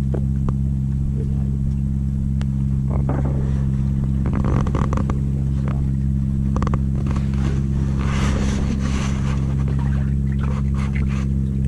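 A fishing boat's engine running steadily with an unchanging hum, with a few short knocks and rustling from handling gear partway through.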